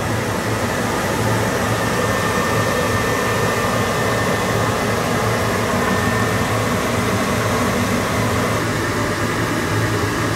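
Steady mechanical hum and fan noise of a submersible's cabin machinery during a deep descent: a constant low hum under a rushing noise with a faint high whine. The tone of the hum shifts slightly near the end.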